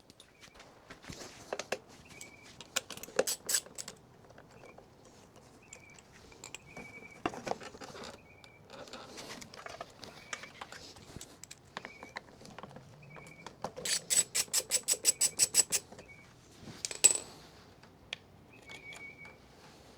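Hand tools and small metal parts clicking and clinking as a push mower's engine parts are taken off. About two-thirds of the way through there is a fast, even run of clicks for about two seconds, followed by one sharp knock.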